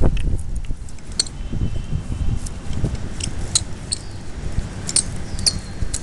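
Hand-cranked banding tool tensioning stainless steel strapping: scattered sharp metallic clicks and clinks from the tool and strap, over a low rumbling background.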